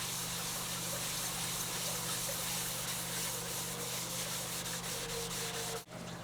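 Abrasive scuff pad rubbed back and forth over car paintwork, a steady scrubbing that keys the surface for painting. It cuts off abruptly near the end.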